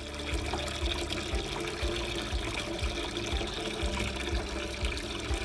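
Water from a small polystone fairy-castle waterwheel fountain falling steadily from its spout into the basin below, a continuous trickling splash, with irregular low thumps.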